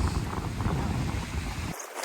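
Wind buffeting the microphone, a heavy low rumble that cuts off suddenly near the end.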